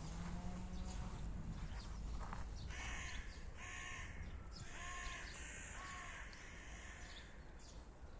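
A crow cawing four times in quick succession, harsh rasping calls, over the clicks of footsteps and a low steady outdoor rumble.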